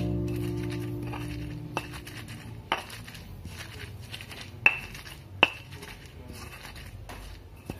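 Kitchenware clinking: about five sharp, short-ringing clinks spread over several seconds, the loudest two about halfway through.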